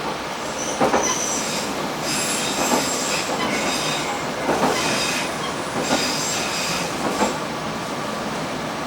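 Akita Nairiku Railway AN-8800 railcar running along the track: a steady rumble with a wheel knock every second or two, and high wheel squeal through the middle.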